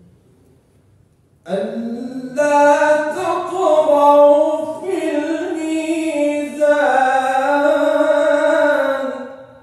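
A man's voice in melodic, chanted Quran recitation (tajweed), drawing out long, ornamented, wavering notes. It begins suddenly about a second and a half in and fades away near the end.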